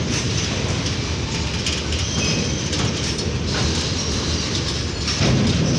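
Freight train of empty BCNA covered wagons rolling past, steel wheels clattering over rail joints over a steady rumble. The clatter gets louder about five seconds in.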